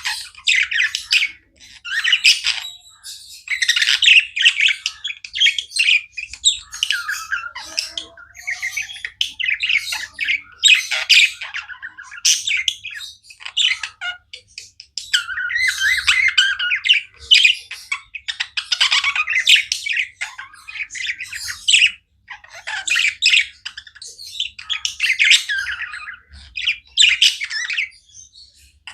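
Pet budgies (budgerigars) chirping and warbling non-stop, with rapid trills and short squawks in dense bursts broken by brief pauses.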